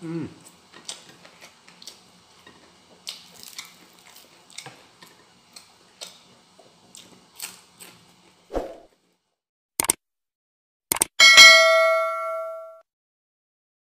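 Faint chewing and mouth clicks of a man eating by hand. Then a subscribe-button sound effect: two sharp clicks and a loud bell ding that rings out for about a second and a half.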